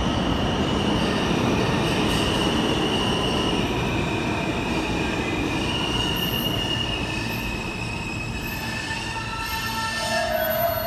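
New York City subway E train entering the station and braking: a steady rumble of wheels on rail with high wheel squeal. Near the end, a whine falls in pitch as the train slows.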